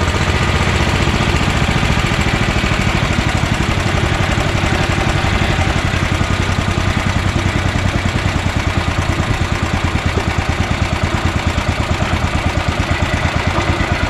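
Honda GX340 single-cylinder four-stroke engine running steadily at idle, with an even pulse of firing strokes.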